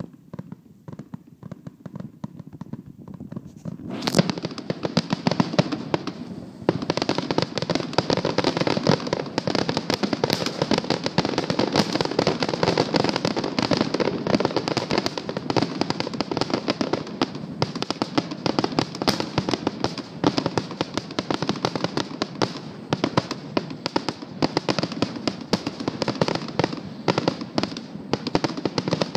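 Aerial fireworks display: a few scattered bangs, then from about four seconds in a dense, continuous barrage of rapid bangs from bursting shells that keeps going.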